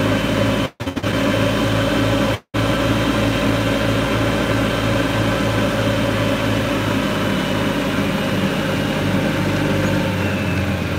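Golf cart running while being driven: a steady low hum with a faint regular pulsing. The sound cuts out briefly twice in the first few seconds.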